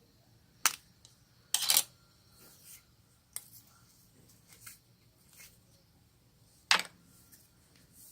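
Homemade slime being worked by hand, giving a few sharp clicking pops with softer sticky squelches between.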